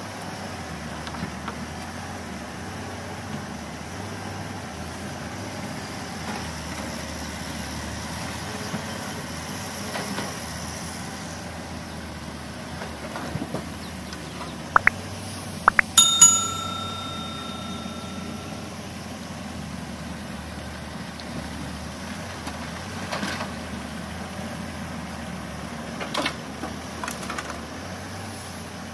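Heavy machinery diesel engine running steadily. A little past halfway there are a few sharp clicks, then a bright metallic bell-like ring that dies away over a couple of seconds; a few lighter knocks follow.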